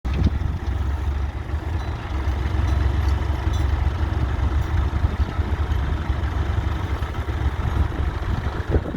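Fordson Super Dexta tractor's three-cylinder diesel engine running steadily with a deep, even rumble.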